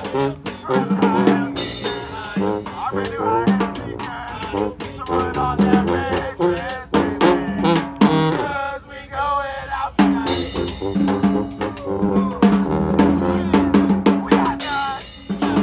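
Live street band playing an instrumental passage: a drum kit with snare and bass drum keeps a busy beat under horns playing the melody.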